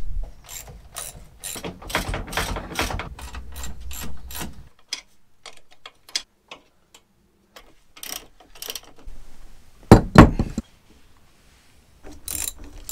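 Ratchet wrench clicking in quick runs as motorcycle wheel and mounting bolts are tightened, with scattered clicks later and a single heavier knock about ten seconds in.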